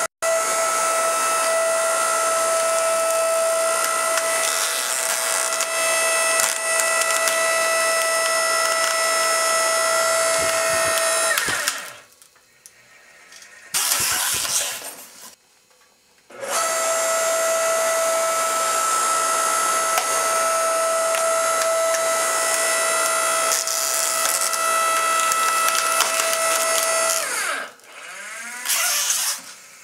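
Motor of a homemade shoe-crushing press running with a steady whine as the V-shaped ram works on a sandal. It switches off about twelve seconds in, winding down with falling pitch, then gives a brief noisy burst. It restarts a few seconds later, winds down again near the end, and gives one more short burst.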